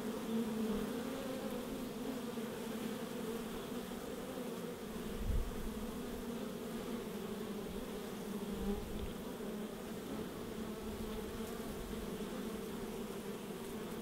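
Many honey bees buzzing together in a steady hum, one low pitch with its overtone above it. A brief low thump comes about five seconds in.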